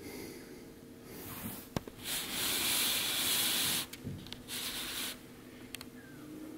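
Scratchy rubbing noise, loudest for about two seconds in the middle and again briefly afterwards, as a week-old kitten crawls against the camera on a cotton bed sheet.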